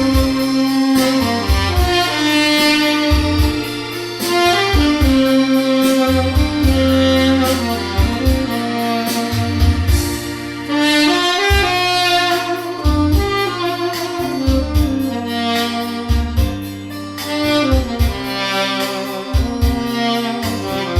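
Tenor saxophone on a stainless steel mouthpiece playing a slow, sustained melody with no added effects, over a backing track with a steady bass line and a drum beat.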